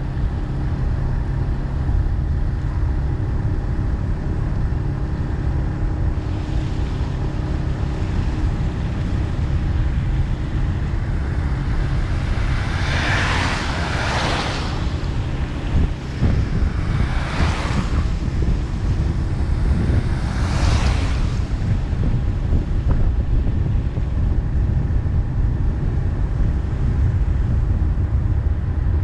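A vehicle driving steadily: constant engine hum and road rumble with wind noise on the microphone. Three louder rushing swells come and go, about halfway through and twice more a few seconds apart.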